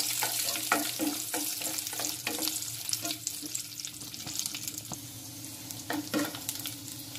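Cashews and raisins frying in ghee in a nonstick pan with a steady sizzle, stirred with a wooden spatula that scrapes the pan in quick repeated strokes; the strokes come less often in the second half. They are being stirred until they turn brown.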